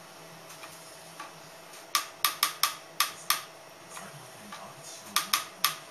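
Battery-powered cat toy's wand mechanism clicking sharply: a quick run of six clicks about two seconds in, then three more near the end, over a faint steady hum.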